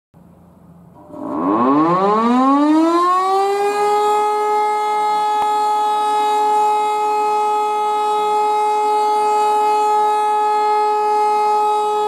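E57 electromechanical siren winding up about a second in, its pitch rising for two to three seconds and then holding a steady tone: the monthly test alarm.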